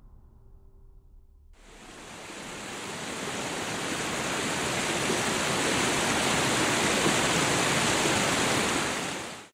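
Rushing river water over rocks, a steady hiss. It fades in about a second and a half in, swells over several seconds, and cuts off abruptly at the end.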